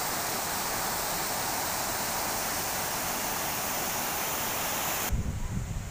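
Fountain jets splashing down into a stone basin: a steady, even rush of falling water. About five seconds in, it cuts off abruptly and gives way to an uneven low rumble.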